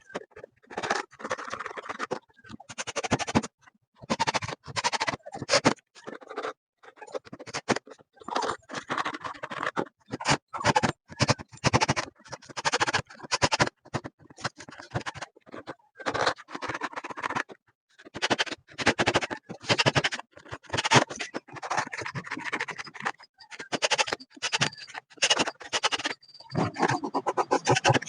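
Metal parts and screws of an adjustable appliance stand clattering, clicking and scraping irregularly as it is assembled by hand.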